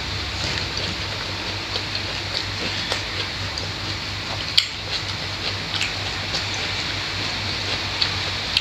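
Close-miked eating sounds of people eating with their hands: scattered small clicks and smacks from chewing, lips and fingers in rice, with one sharper click about four and a half seconds in. Under them runs a steady background hiss and hum.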